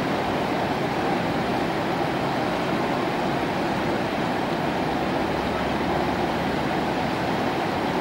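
Steady rushing of whitewater river rapids.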